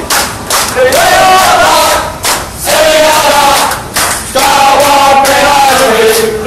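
Perak FA football supporters chanting loudly in unison, close to the microphone, in shouted phrases broken by short pauses about two and four seconds in.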